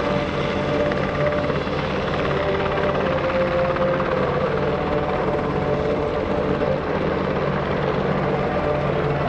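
UH-60 Black Hawk helicopter hovering, its rotors and twin turboshaft engines running steadily with a held whine over the rotor noise.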